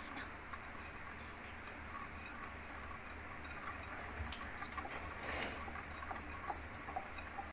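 Wire whisk beating a smooth, creamy ghee-and-egg paste in a bowl: a steady, fast, wet swishing with a few light ticks of the wires.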